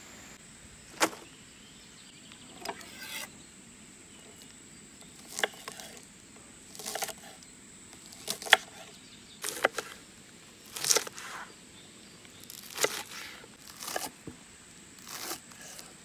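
Kitchen knife slicing through scallions onto a wooden cutting board: slow, separate crisp cuts, roughly one a second, over a faint steady hiss of running stream water.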